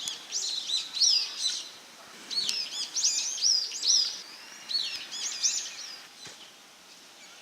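A small songbird singing: three bursts of quick, high, looping notes, fading out about six seconds in.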